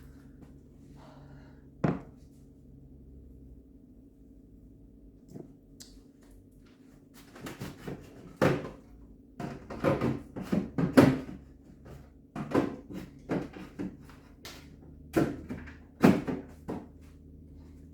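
Repeated knocks and clunks of food containers and jars being handled and set down on fridge shelves, sparse at first and coming thick and fast after about seven seconds, over a steady low hum.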